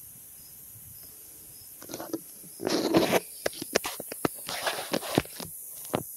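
Irregular rustling, scuffing and clicks, as of someone moving about and handling things, starting about two seconds in over a quiet outdoor background.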